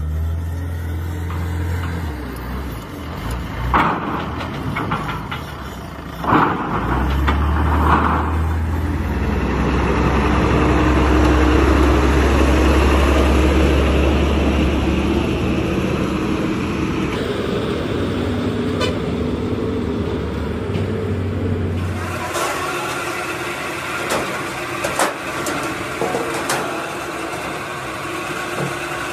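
Heavy diesel truck engine running, with three short horn toots in the first several seconds and a steady engine drone after. Near the end the sound changes to workshop clatter with sharp metallic clicks.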